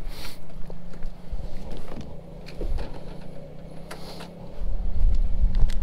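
Pickup truck engine idling with a steady low hum, with footsteps and light knocks close by. A louder low rumble comes in over the last second or so.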